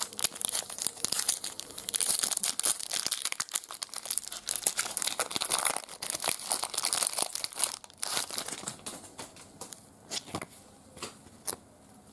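Foil wrapper of a 1996 Fleer Ultra X-Men Wolverine trading card pack being torn open and crinkled by hand. Dense crackling through the first eight seconds, thinning to a few scattered crinkles near the end.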